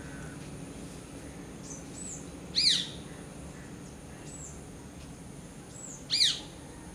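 Rose-ringed parakeet giving two loud, shrill calls that sweep down in pitch, about three and a half seconds apart. Faint short high notes from another bird repeat about once a second.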